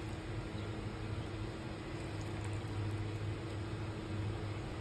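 Hot chicken broth being poured or ladled into a ceramic bowl of tinola, over a steady low hum.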